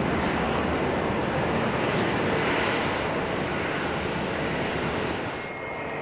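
Airbus A321neo airliner's jet engines running as it rolls out along the runway after touchdown, a steady dense rush of engine and air noise that swells slightly around the middle. Near the end the sound drops and gives way to the steady high whine of a Dassault Falcon 7X business jet on approach.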